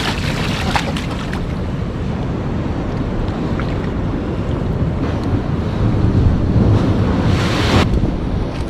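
Sea surf washing on the shore with wind buffeting the microphone, a low steady rumble; it swells louder with a hissing wash near the end, which stops abruptly.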